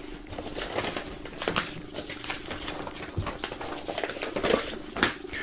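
A large printed paper poster rustling and crackling as it is handled and folded by hand, in short irregular crinkles.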